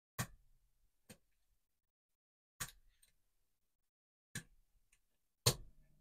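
Lock pick and tension wrench clicking in the core of a Brinks laminated padlock during picking: about five sharp metallic clicks at uneven intervals, the loudest near the end.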